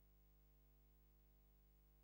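Near silence: a faint steady low hum with no other sounds.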